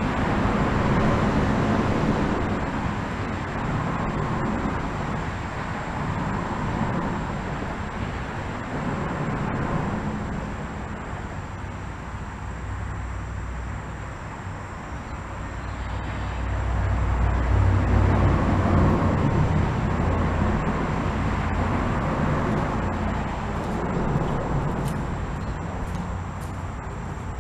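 Road traffic on the bridge overhead, a steady wash of passing vehicles that swells and fades. The loudest and deepest pass comes about two-thirds of the way through.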